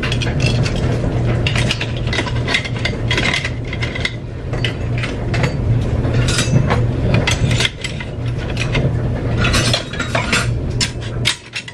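Metal kitchen utensils, tongs among them, clinking and rattling as they are handled and sorted into a utensil crock, with a steady low hum underneath.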